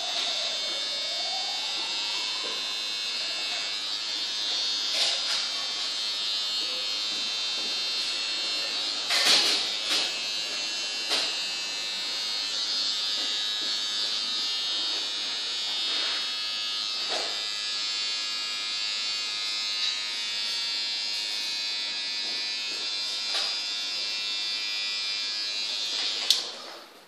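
A small electric motor running with a steady high whir, which cuts off suddenly near the end. A few short sharp clicks sound over it.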